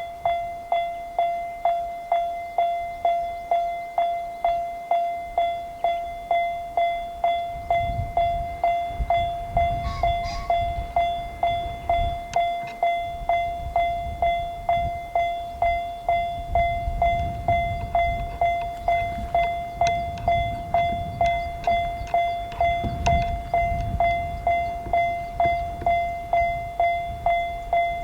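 Japanese level-crossing alarm bell starting up and ringing "kan-kan" about twice a second, each strike a single tone that fades quickly. From about eight seconds in, the low rumble of a passing train comes in under it, swelling and easing.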